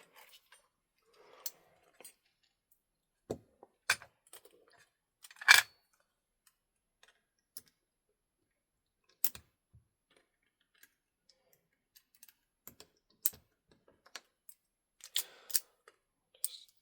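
Small metal clicks and taps, spread unevenly, from a lock cylinder being worked with a shim and key. One louder clack comes about five and a half seconds in.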